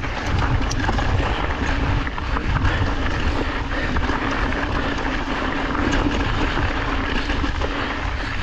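Yeti SB 150 full-suspension mountain bike riding down a dirt trail: steady wind rumble on the chest-mounted action camera's microphone over tyre noise, with scattered small clicks and rattles from the bike.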